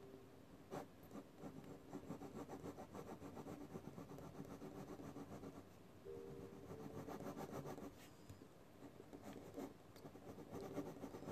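Pencil scratching on drawing paper in quick short strokes, with a couple of brief pauses.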